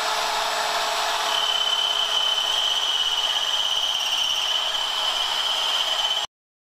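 Electric sander running steadily against a metal bumper support, a constant grinding whir with a high whine that comes in about a second in. It cuts off abruptly shortly before the end.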